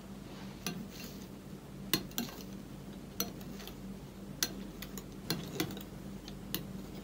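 Metal wire whisk stirring soufflé batter (egg-yolk mixture folded into whipped egg whites) in a glass bowl, its wires clinking against the glass about ten times at uneven intervals.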